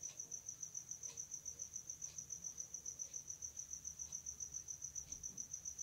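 A cricket chirping in a steady, even high-pitched trill of about eight pulses a second.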